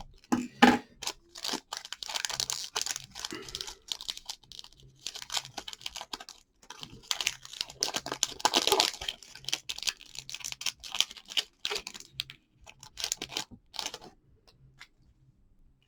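Trading card pack wrapper being torn open and crinkled by hand, a run of irregular crackles and rustles, with the cards being handled.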